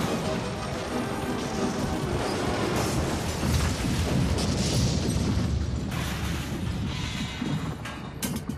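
Sound effects of a wooden building collapsing: a long, rumbling crash of breaking timber that eases near the end, over background music.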